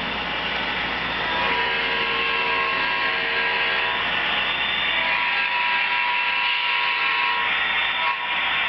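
Model train running on the track: a steady mechanical whirring and rolling with whining tones that come and go, getting louder about a second and a half in.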